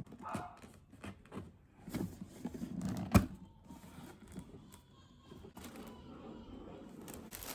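Packaging being handled by hand: scattered light taps and rustles, with one sharp knock about three seconds in.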